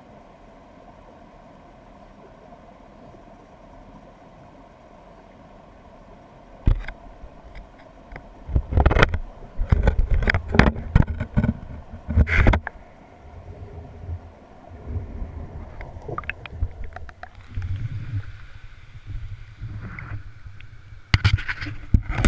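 Steady low underwater noise picked up by a submerged action camera. From about seven seconds in comes a run of loud knocks and bumps on the camera housing as it is moved and pulled up out of the water, with more knocks near the end.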